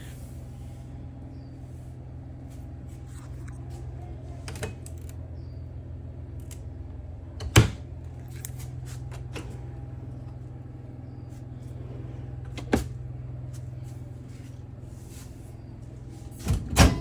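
Steady low hum of a fan or appliance running inside an RV, with a few sharp knocks. The loudest knock comes about halfway through and a double knock near the end.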